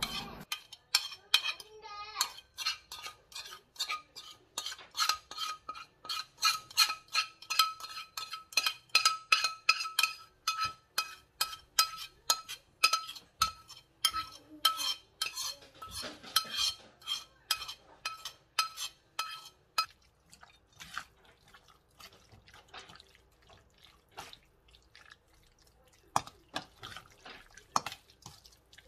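Metal spoon mixing raw chicken pieces with red chili paste in a stainless steel bowl, clinking against the bowl two or three times a second with a ringing tone. The clinks grow fainter and sparser after about twenty seconds.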